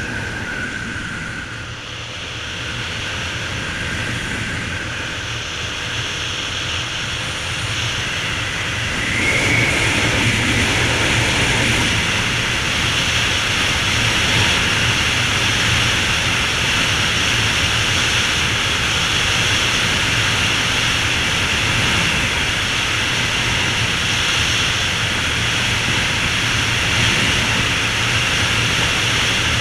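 Honda XR250 Tornado's single-cylinder four-stroke engine running as the motorcycle rides along firm beach sand, with wind noise over it. The sound grows louder about nine seconds in and then holds steady.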